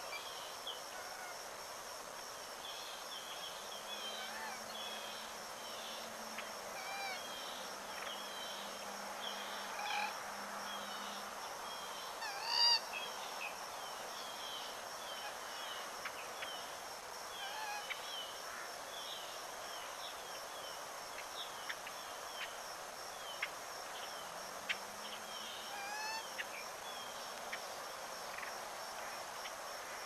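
Steady, high-pitched pulsing insect drone with many short bird chirps over it, and one louder bird call a little before the middle. A faint low hum comes and goes twice.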